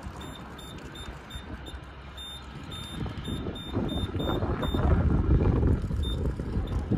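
Digital tyre inflator's keypad beeping with each press of its button as the pressure setting is raised from 36 to 51: a string of short high beeps, about three a second, over the first five seconds, then one more near the end. A low rumble underneath grows louder from about three seconds in.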